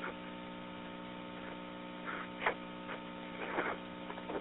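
Steady electrical hum and hiss on a recorded telephone line, with a few faint, brief sounds about two seconds and three and a half seconds in.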